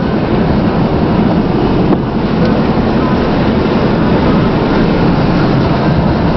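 Strong wind blowing across the microphone, a loud steady rumbling noise, with the truck running underneath it.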